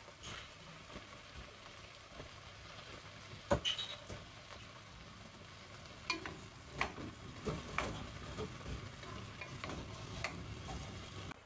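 Chicken and vegetables sizzling as they are stir-fried in a pot to brown the chicken. A wooden spatula knocks and scrapes against the pot now and then; the loudest knock comes about three and a half seconds in.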